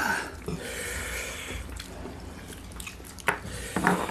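Close-miked wet eating sounds: chewing, and curried katla fish head squelching as it is pulled apart by hand, with small scattered clicks.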